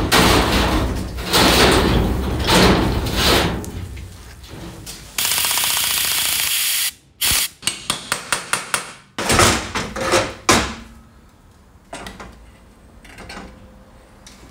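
Workshop tool noises from motorcycle parts being worked on: loud knocks and clatter, then a steady noisy burst of under two seconds about five seconds in that stops abruptly, then a quick run of about eight sharp taps.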